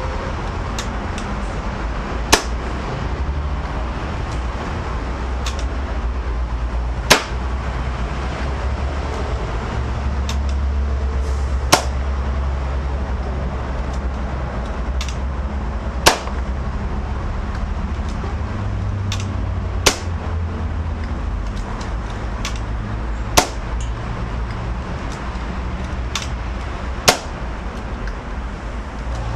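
Hatsan AT44 PCP air rifle fired seven times through a chronograph, each shot a sharp crack about every four seconds, with fainter clicks in between over a steady low rumble.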